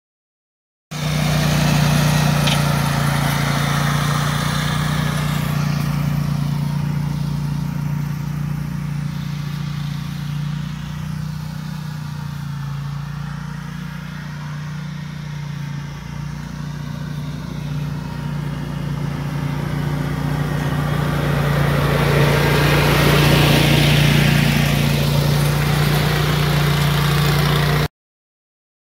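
Z-Beast zero-turn mower's engine running at a steady speed as it tows a lawn sweeper. It is quieter in the middle and louder again after about twenty seconds, then cuts off abruptly near the end.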